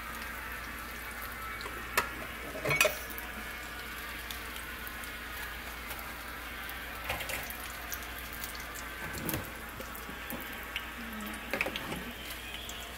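Batter-coated green bean bundles frying in oil in a skillet, a steady sizzle, with a few sharp clicks and knocks now and then.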